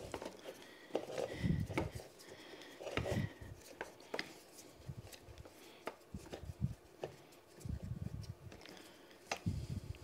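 Hands fitting and screwing together the metal parts of a Park Tool PCS-10 bicycle repair stand's head: irregular light clicks, short knocks and rubbing.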